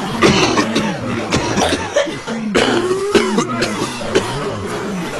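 A crowd of people coughing, many short coughs overlapping one another.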